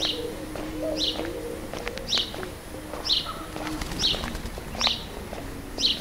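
A small bird repeating one short, high chirp about once a second, with doves cooing low underneath.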